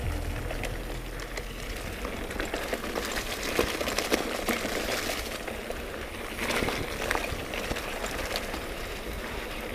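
Mountain bike rolling along a dirt trail: tyres crunching over loose dirt and twigs, and the bike rattling over bumps with a steady stream of small clicks and knocks.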